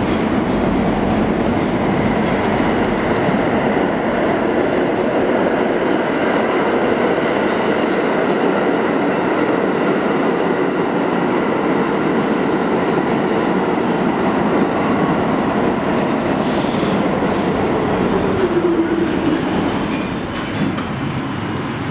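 R46 New York City subway train running along the track, a steady loud rumble of steel wheels on rail. A brief hiss comes about two-thirds of the way in, and a falling whine follows before the sound eases off near the end.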